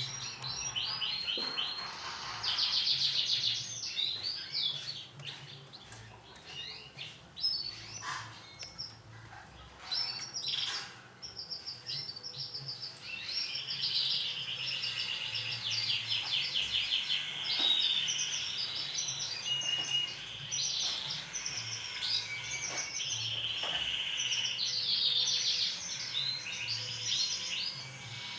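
Domestic canary singing: long runs of fast rolling trills and chirped notes, thinning to scattered calls for several seconds in the first half before the full song picks up again.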